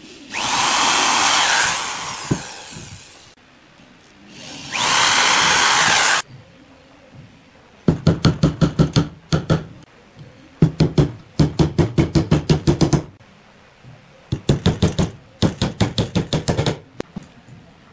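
An electric drill drilling into a pine board in two short runs, each winding up and spinning down. Then a claw hammer drives nails into the pine in four quick runs of blows, about five a second.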